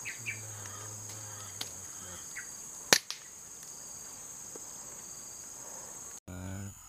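A single sharp crack of a Canon 747 air rifle shot about three seconds in, over a steady high-pitched drone of insects, with a few short bird chirps before the shot.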